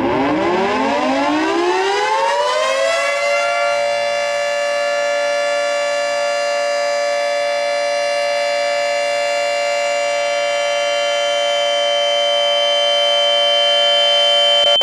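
Civil-defense-style warning siren winding up over about three seconds, then holding a steady chord of several tones that slowly grows louder.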